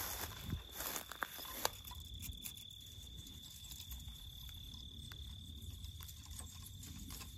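Dry grass and brush rustling, with a few sharp clicks, as a logger's tape is pulled out and worked down to a pine seedling; after about two seconds it goes quieter, leaving a low rumble of handling on the phone microphone and a few faint ticks. A thin steady high tone runs under it all.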